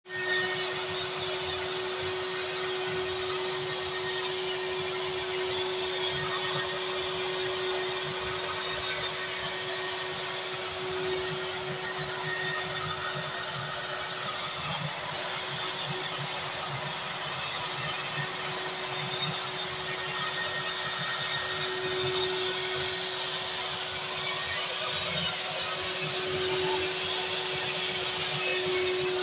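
CNC router cutting sheet board, its router motor running at a constant steady whine over the rush of the dust-collection vacuum drawing through its hose.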